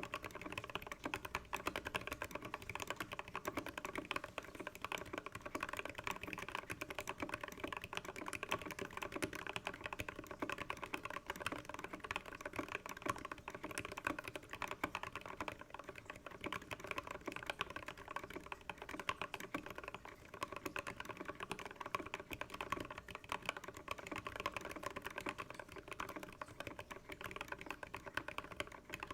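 Fast, continuous typing on a GK64x mechanical keyboard with lubed Alpaca linear switches and HK Gaming PBT Cherry-profile keycaps: a dense, steady stream of keystrokes.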